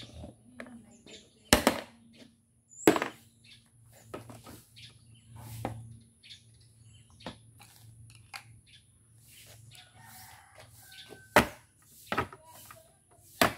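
Several sharp knocks and clicks of hands and a screwdriver on the plastic handlebar cover of a Honda Spacy scooter, with quieter handling sounds between them. The strongest come twice in the first three seconds and three times near the end.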